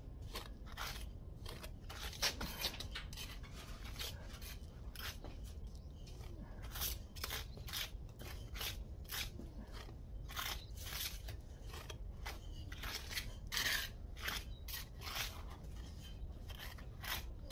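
Steel pointing trowels scraping and pressing a wet sharp-sand mortar mix into the joints between stone flags, in a run of short, irregular scrapes.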